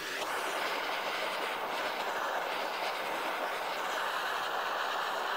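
Handheld butane cartridge torch burning with a steady hiss of flame, starting abruptly with a click.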